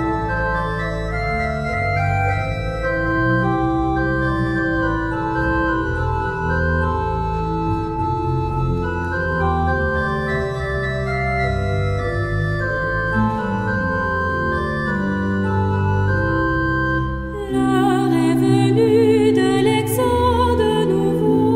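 Church organ playing slow sustained chords. About seventeen and a half seconds in, singing voices with vibrato join the organ as a hymn begins.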